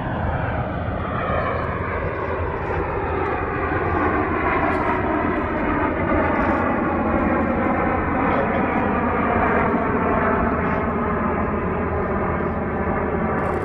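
Snowbirds' CT-114 Tutor jets flying past with the steady sound of their turbojet engines; a whine in the sound falls in pitch over the first several seconds as they pass, then holds level.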